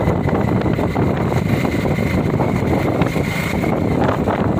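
A vehicle engine running steadily, with wind rushing over the microphone as it moves.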